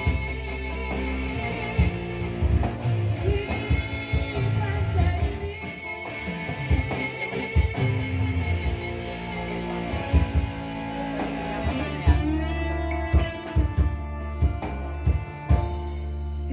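A rock-pop song with electric guitar, drum kit and some vocals, played back through Yamaha DBR/DSR powered PA loudspeakers as a sound check.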